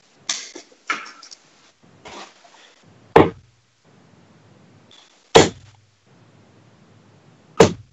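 Three darts striking a bristle dartboard, one sharp thud each about two seconds apart.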